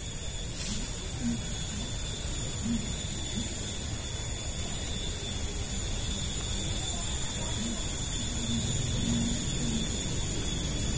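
Streamside outdoor ambience: a steady low rumble with faint, steady high-pitched tones above it. Every few moments there is a faint, short, low sound.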